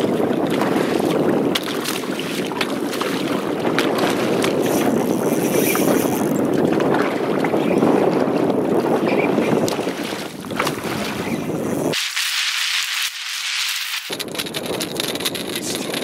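Steady rushing wind noise on the microphone over open water. The low rumble cuts out abruptly for about two seconds near the end, then returns.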